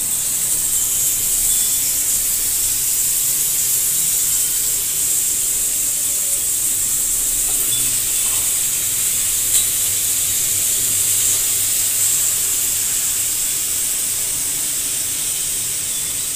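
Marinated chicken tikka legs sizzling on a hot, oiled ridged grill pan as they are laid on: a loud, steady hiss.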